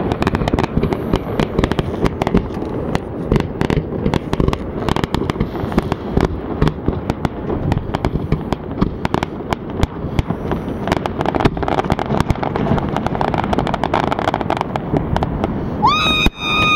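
Fireworks going off in a dense, continuous barrage: many rapid overlapping bangs and crackles with no pause. Near the end a long, steady pitched tone rises in and holds over the bangs.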